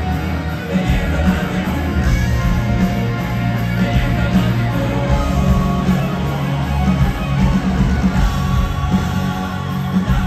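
Live rock band playing through a stadium PA, heard from the crowd, with electric guitar to the fore over bass and drums.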